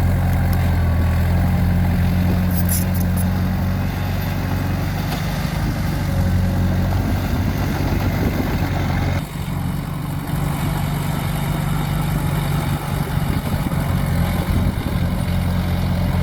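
Heavy machine's engine running steadily with a deep low hum. About nine seconds in the sound changes abruptly.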